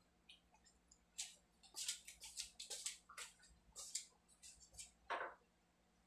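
Faint, irregular light clicks and taps, a dozen or so spread out, with a slightly fuller knock about five seconds in.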